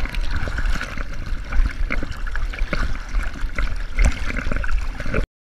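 River water sloshing and splashing around a camera held half-submerged at the surface, with a dense, irregular crackle and low rumble; it cuts off suddenly near the end.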